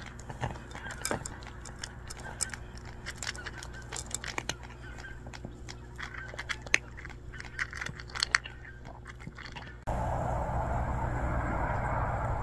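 A cat crunching dry kibble from a bowl: irregular sharp crunches, a few to several a second. Near the end it cuts suddenly to a louder steady noise.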